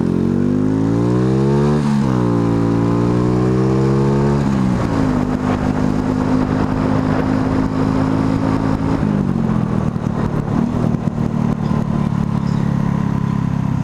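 Motorcycle engine accelerating hard through the gears, with upshifts about two and five seconds in, then holding a steady cruising speed with a slight drop in revs about nine seconds in.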